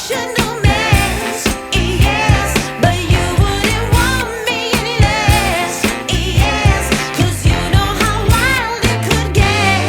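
Background pop song: a singing voice over a steady drum beat.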